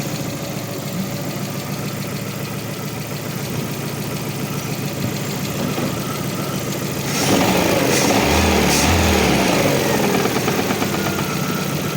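Lada Vesta 1.6 engine idling, then revved from about seven seconds in for a few seconds before dropping back. It has a knock and runs unevenly, which the mechanic puts down to either the timing belt or the water pump, possibly a timing belt that has jumped slightly.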